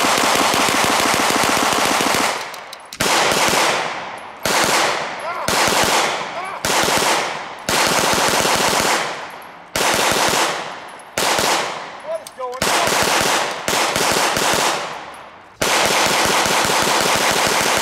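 Tippmann Armory 9mm Gatling gun firing full metal jacket rounds. It fires stop-start: a long burst, then a string of short bursts about a second apart, each with a ringing tail, and another long burst near the end. The string is not as smooth as intended because the gun jams along the way.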